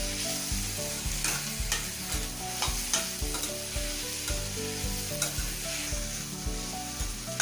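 Chopped tomatoes and onions frying in oil in a kadai, sizzling steadily, with a spoon stirring and scraping the pan a few times.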